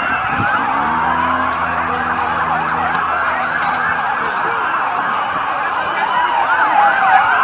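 Several emergency vehicle sirens sounding at once, their pitches sweeping up and down and overlapping, some in slow wails and some in fast yelps.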